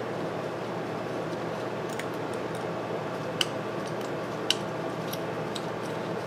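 Light metallic clicks and taps as the ignition coil and wire of an antique Briggs & Stratton 5S engine are handled, with two sharper clicks about three and a half and four and a half seconds in. A steady hum runs underneath.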